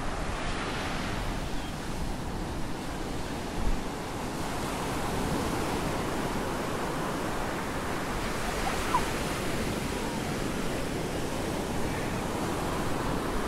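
Small ocean waves breaking and washing up a sandy beach: a steady rushing surf, with wind on the microphone and a brief low bump of a gust about four seconds in.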